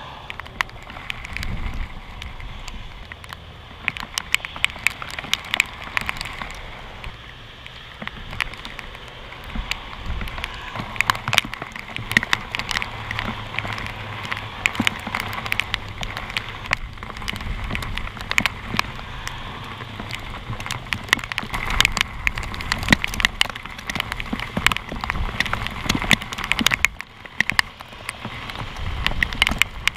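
Rain falling, with dense, irregular ticks of raindrops striking the camera close up over a low wind rumble.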